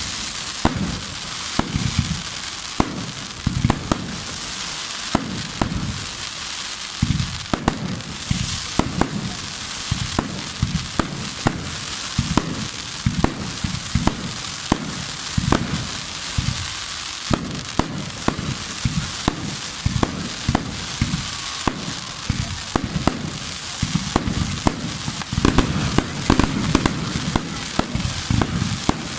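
Fireworks display: a steady run of bangs from bursting shells, several every few seconds at irregular spacing, over a continuous crackle and hiss.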